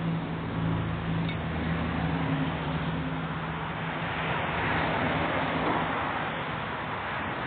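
A vehicle engine running with a steady low hum that fades out about five seconds in, while a rushing noise swells.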